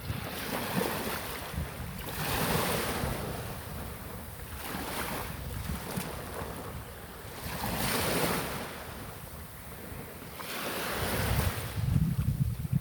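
Sea waves washing in, the rush of surf swelling and fading every few seconds. Wind buffets the microphone with a low rumble near the end.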